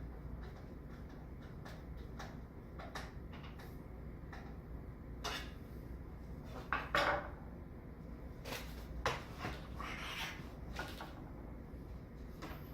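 Scattered light clicks, taps and scrapes of a screwdriver and screw working against the metal card bracket of a PC case, with a couple of louder knocks about seven and ten seconds in. A steady low hum sits underneath.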